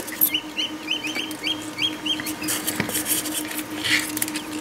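Newly hatched Cobb 500 broiler chicks peeping, a fast steady run of short high chirps, about four a second. A steady low hum and some light rustling sit underneath.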